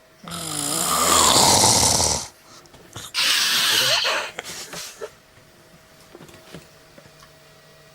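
A person snoring very loudly: one long, rasping snore drawn in over about two seconds, then a shorter, hissing breath out about a second later. After that it goes quiet.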